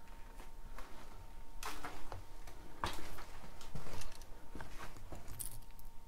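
Irregular knocks, clicks and scrapes of a person moving about and handling things in an abandoned building, with a few louder scraping rustles about two, three and five seconds in.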